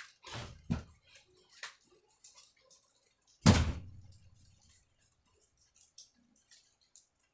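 A heavy dull thud about three and a half seconds in, the loudest sound, fading over about a second. It follows a softer double knock near the start, with faint scattered ticks and clicks between.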